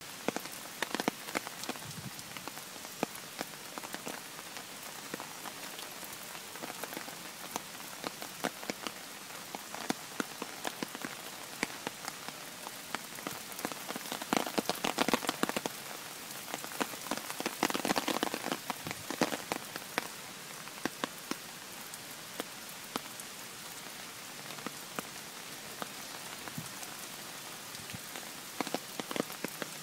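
Heavy rain falling steadily on a gravel path and puddles, with many single drops ticking close by. The rain swells louder for a few seconds around the middle before easing back.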